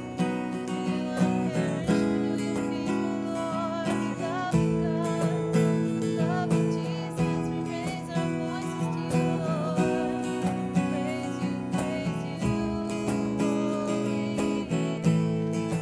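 Worship music: an acoustic guitar strumming steady chords, with a wavering melody line above it.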